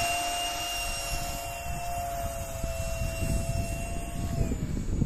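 Electric ducted fans of an RC flying wing running at high power, a steady high-pitched whine that slowly fades as the plane climbs away. Near the end the pitch drops.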